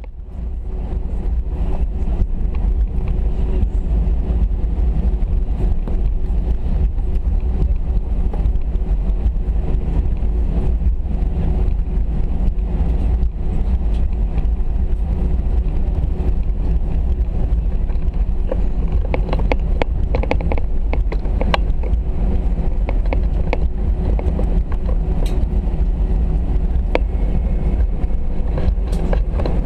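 Steady cabin noise inside an Airbus A319 airliner before departure: a loud, even low rumble with a constant hum. A cluster of small clicks and knocks comes about two-thirds of the way through.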